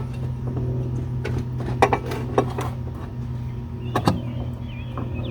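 Clicks and knocks of car parts being handled and fitted, over a steady low hum.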